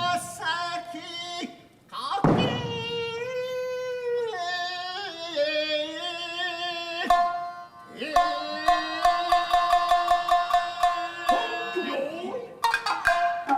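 Traditional Tokiwazu music for Japanese dance: long held, wavering melodic notes over the ensemble, then a quick, even run of sharp struck notes from about eight seconds in.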